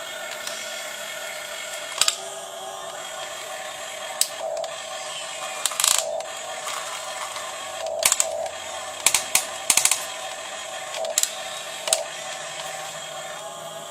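Small electric gear motors of a 1:15-scale RC excavator whining steadily, with sharp clicks and knocks every second or two and a quick cluster of them a little past the middle.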